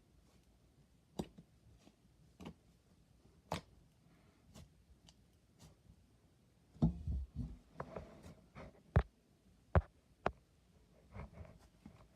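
Slime being played with by hand, making scattered sharp clicks and pops, with a denser run of pops and crackles about seven seconds in.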